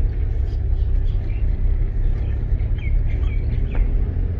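Toyota car with a manual gearbox, heard from inside the cabin as it creeps along in first gear: a steady low engine and road rumble. A few faint bird chirps come in from outside about a second in and again near three seconds.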